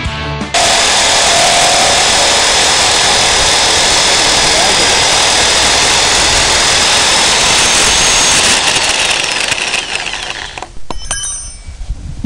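Electric drill running steadily as its bit bores through a panel for about eight seconds, then easing off into uneven, intermittent whirring near the end.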